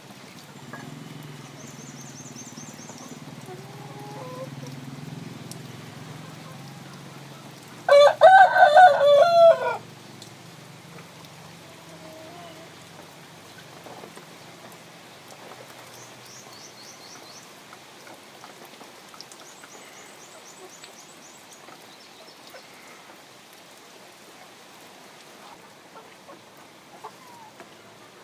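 A rooster crowing once, about eight seconds in: one loud call lasting about two seconds. Faint, high, quick chirps of small birds come and go.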